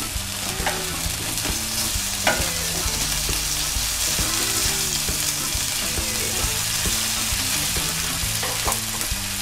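Honey-butter-basted chicken wings sizzling steadily in a hot double-sided grill pan, with a few sharp clicks of metal tongs against the pan as the pieces are turned.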